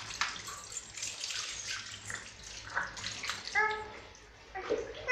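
Water poured from a plastic mug splashing onto a baby's wet back and the hands rubbing it, in a run of short splashes. A short high cry comes about three and a half seconds in, and another starts near the end.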